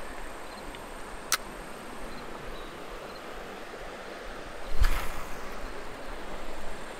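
A cast with a spinning rod and reel: a single sharp click about a second in, then a heavier thump just before five seconds, over a steady faint hiss.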